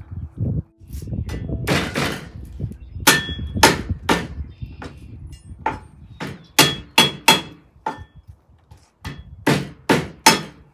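Knife chopping on a plastic cutting board: a series of sharp, irregular knocks, at times two or three a second, some with a short ringing.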